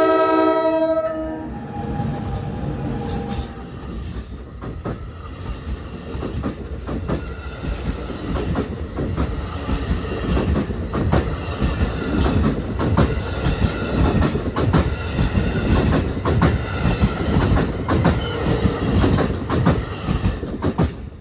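NJ Transit ALP-46A electric locomotive's horn sounding a chord that cuts off about a second and a half in. The locomotive and its double-deck passenger coaches then roll past close by, wheels clicking over the rail joints in a steady clickety-clack.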